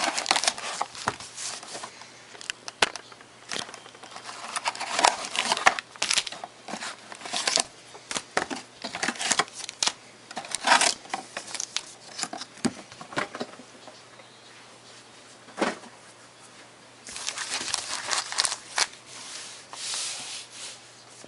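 Trading card box and foil packs being opened by hand: wrappers crinkling and tearing in irregular bursts. There is a quieter stretch about two-thirds through, then another dense burst of crinkling.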